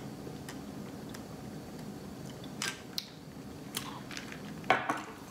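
Quiet sipping of an iced drink through a straw with a few small clicks, then the cup is set down on a granite countertop with a sharp knock near the end.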